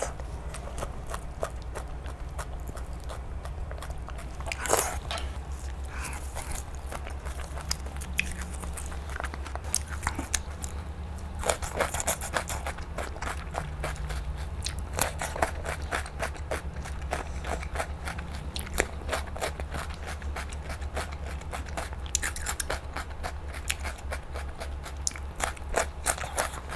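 Close-miked eating: chewing and biting, with clusters of crisp, crackling crunches, over a steady low hum.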